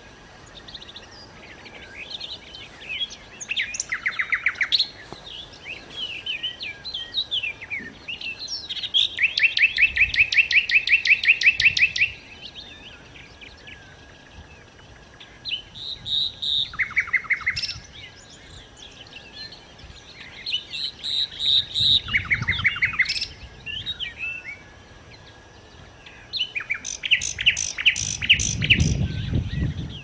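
A songbird singing in separate phrases with pauses between them, mixing varied chirps with fast runs of evenly repeated notes. The longest run comes about a third of the way in. A low rumble sits under two of the later phrases.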